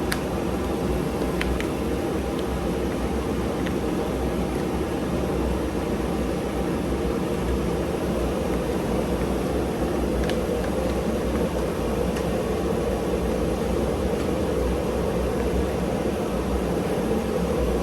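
A steady rush of blown air, like an electric fan or blower running without a break.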